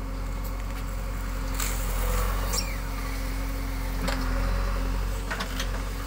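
JCB 3DX backhoe loader's four-cylinder diesel engine running steadily while the backhoe arm lifts out of the trench and swings to the side, with a few short clicks and scrapes along the way.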